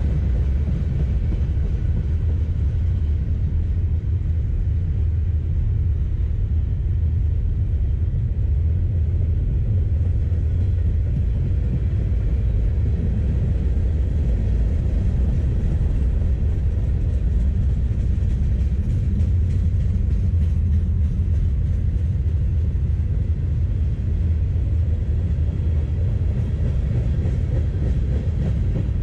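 Freight cars of a long mixed freight train rolling past close by: a steady low rumble of steel wheels on rail.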